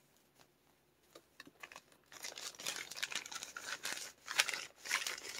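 Doll-wig packaging crinkling and rustling as it is handled by hand, starting about two seconds in after a few faint clicks.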